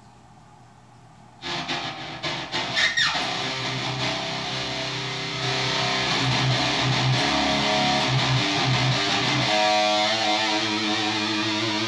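Electric guitar, a 1991 ESP M-II Custom NTB, played through a Randall RG3003H solid-state head into a Mesa Rectifier 4x12 cabinet with a thick distorted tone. It comes in about a second and a half in after a little amp hiss, with a falling slide about three seconds in, then a run of chugging low notes, and from near the end held notes shaken with vibrato.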